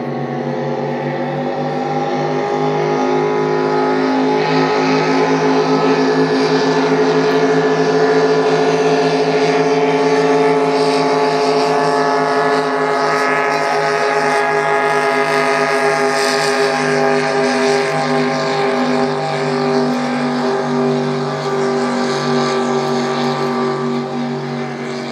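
Boat engines droning at a steady pitch, swelling a little and then slowly easing off.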